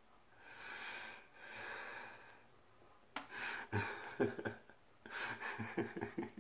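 A man breathing heavily through a face covered in pie cream and slime, two long breaths, then short gasping laughs from about halfway on as he wipes his face.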